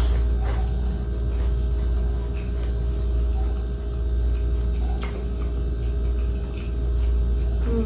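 Steady low room hum, with a few faint crisp clicks, the clearest about five seconds in, as a fried lumpia (spring roll) is chewed.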